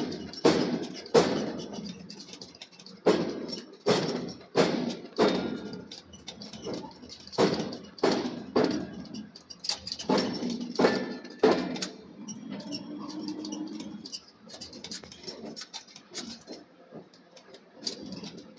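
Repeated hammer blows on steel in forging, irregular at about one to two a second, then stopping about twelve seconds in, leaving a low hum and a few scattered knocks.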